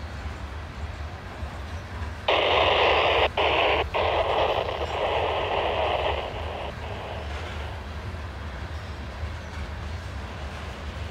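Loaded freight train of covered hopper cars rolling past with a steady low rumble. From about two seconds in until nearly seven seconds, a railroad scanner radio breaks in with a loud burst of static hiss. The hiss drops out twice for an instant and then cuts off sharply.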